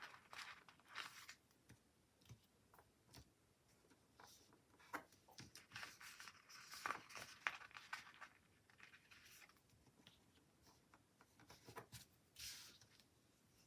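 Faint peeling and rustling of paper planner stickers lifted off their backing sheet and pressed onto the page, with scattered small clicks and taps.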